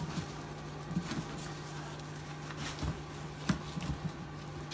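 Young puppies scampering and scuffling in wood-shaving bedding: light pattering with scattered small clicks and knocks, the sharpest about three and a half seconds in, over a steady low hum.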